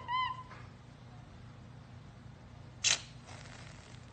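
A capuchin monkey's high, arching chirps trail off in the first half-second. About three seconds in, an aerosol whipped-cream can gives one short hissing spurt.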